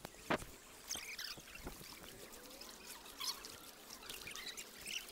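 Bare feet wading through shallow river water: faint, scattered splashing and trickling.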